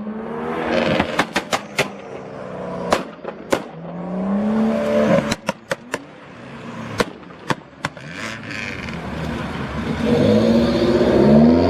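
Performance car engine revving hard through a loud exhaust, the revs rising in pulls about a second in, midway and strongest near the end, with sharp crackles and pops from the exhaust in between.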